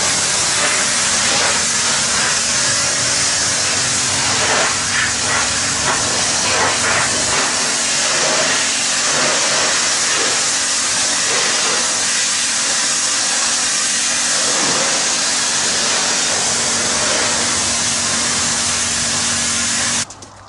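Hot-water pressure washer running: a loud, steady hiss of the spray jet over a low, even hum. It cuts off abruptly near the end.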